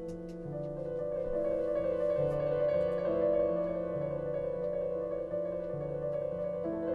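Instrumental pop music with piano-like keyboard chords over a stepping bass line, played back through Thonet & vander Kugel loudspeakers. A rising sweep begins near the end.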